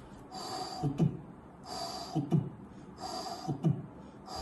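A man imitating heart sounds with his mouth, about three times over: a soft blowing hiss, then two quick low 'dub' thumps. It mimics the soft pansystolic murmur of mitral regurgitation with the second and third heart sounds at its end.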